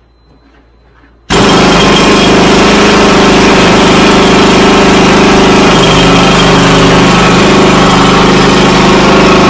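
Pneumatic jackhammer, run off an air compressor, starting abruptly about a second in and then hammering steadily and very loudly as it breaks out a concrete footer.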